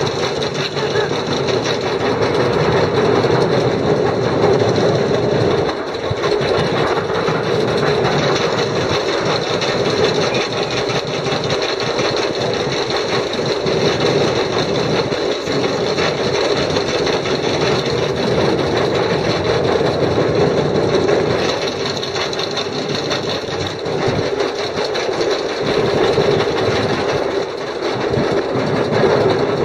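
X2 roller coaster train being hauled up its chain lift hill, the lift chain rattling in a steady, fast clatter.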